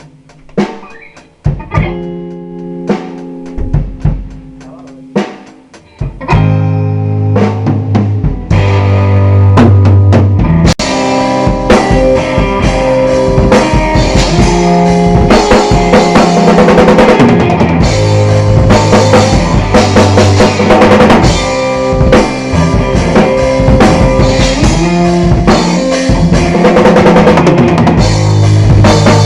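Rock music played on guitar and drum kit. For the first few seconds the guitar plays sparse notes against occasional drum hits. About six seconds in, the full drum kit comes in with bass drum and rimshots, and the song builds to a loud, dense passage.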